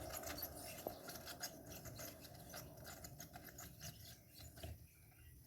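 Tufão electric fan turning with its front grille off, giving a faint, thin squeak like a frightened mouse: a steady high whine with small scratchy ticks.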